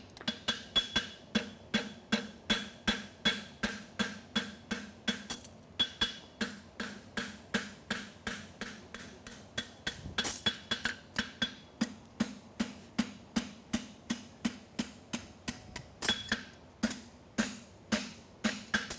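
Forging hammer striking a red-hot steel horseshoe on an anvil in a steady rhythm of about two to three blows a second, each blow with a short metallic ring. This is hand-forging a French toe hind shoe, gathering and flattening the metal at the toe corner.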